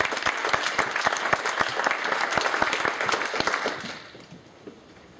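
Audience applauding, fading out about four seconds in.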